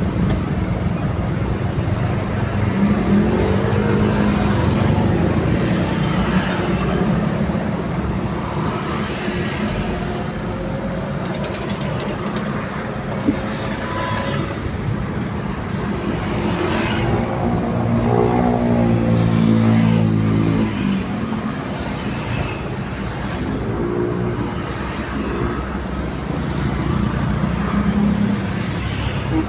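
Steady toll-road traffic, with several heavy vehicles passing. Their engine notes swell and fade as they go by, the loudest a little past halfway.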